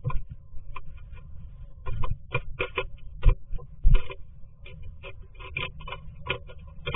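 Black-capped chickadee at the entrance hole of a wooden nest box, its feet and bill scratching and tapping on the wood, heard from inside the box as irregular clicks and knocks, with two heavier thumps around the middle.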